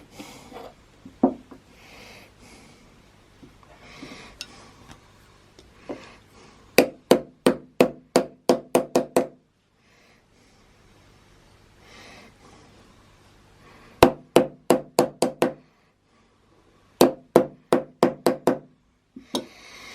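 Rapid light hammer taps on a small metal part, in three bursts of about eight to ten taps each, about four a second. The taps close the retaining tab over the jet housing to clamp the SU carburettor jet assembly together.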